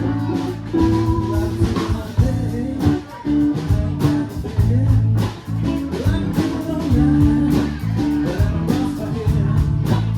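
Live blues-rock band playing: electric guitar and bass over a drum kit keeping a steady beat, with a voice singing.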